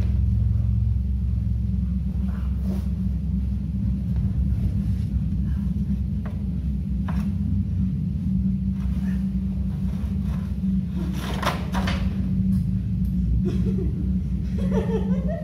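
A steady low rumble, with scattered faint knocks, a brief noisy burst about eleven seconds in, and a short voice near the end.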